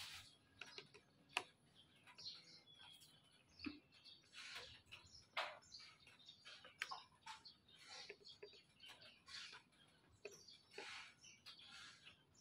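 Faint, scattered clicks and scrapes of a screwdriver turning screws into a plastic licence-plate holder on a scooter's rear fender, with one sharp click about a second and a half in, plus short high chirps here and there.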